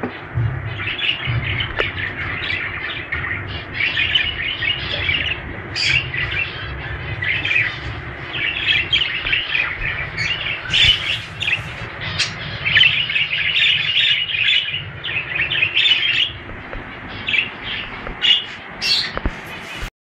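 English (exhibition-type) budgerigars chattering and warbling without a break, with frequent sharp high chirps mixed in.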